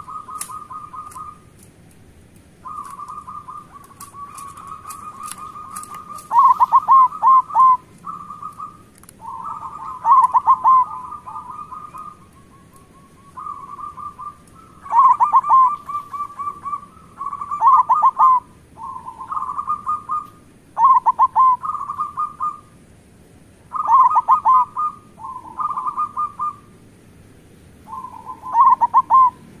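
Zebra doves (perkutut) cooing. They give repeated phrases of rapid, stuttering coos every second or two, and the phrases often overlap, as two birds calling together.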